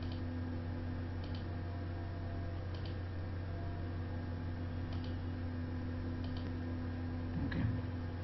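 Computer mouse clicking about six times, a second or two apart, over a steady electrical hum.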